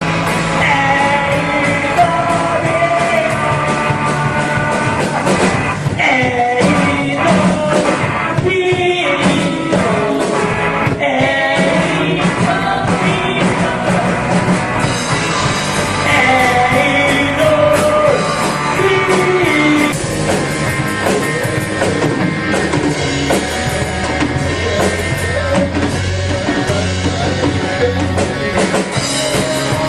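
A rock song with a lead vocal over a band of drums and guitar.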